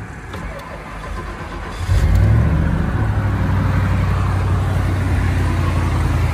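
Warm car engine starting about two seconds in, then settling into a steady, even idle with no hydraulic valve-lifter tapping to be heard.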